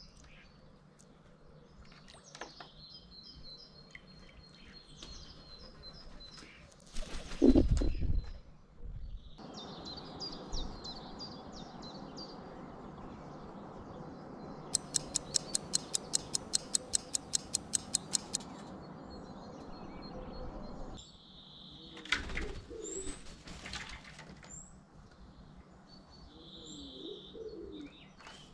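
Small birds chirping and trilling in a garden. A loud low thump comes about seven seconds in. Later there is a quick run of clicks at about five a second, then a few low wavering calls.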